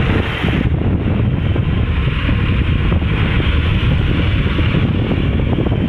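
Wind buffeting the microphone over the steady rush of engine and road noise while riding a two-wheeler along a city road.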